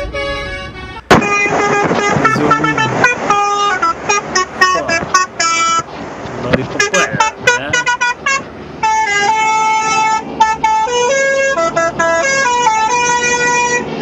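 Lorry's multi-tone "telolet" musical horn playing quick runs of short notes that jump from pitch to pitch, in several bursts. There is a sharp click about a second in.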